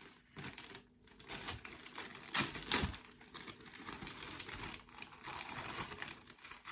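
Small plastic Lego pieces clicking and rattling under the hands as they are picked out and fitted together, with bits of rustling, in irregular taps with a louder clack about two and a half seconds in.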